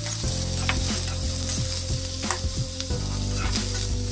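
Sliced onions sizzling as they fry in oil in a steel kadhai. They are being stirred, with a few short knocks against the pan.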